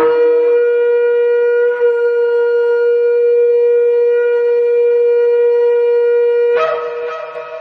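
A single long horn blast held steady on one note, with a brief break about two seconds in. Near the end it jumps up in pitch and fades away.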